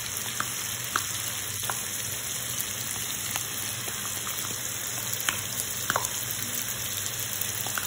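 Diced smoked sausage and garlic frying in oil in a nonstick pan: a steady sizzle, with a few scattered small clicks as tomato paste is spooned in from a tub.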